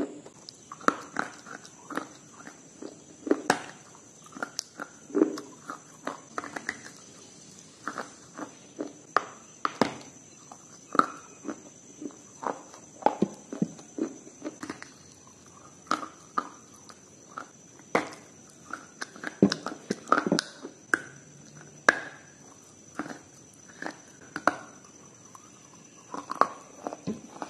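Close-miked ASMR eating: irregular sharp bites and crunches of a hard, brittle food, one or two a second, with chewing and mouth sounds between them, over a steady high-pitched hiss.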